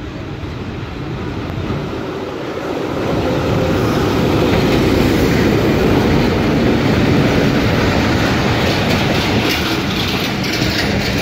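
Pakistan Railways GRU-20 diesel-electric locomotive hauling a passenger train past. The locomotive grows louder over the first few seconds as it draws near, then the coaches roll by close, their wheels clacking over the rail joints.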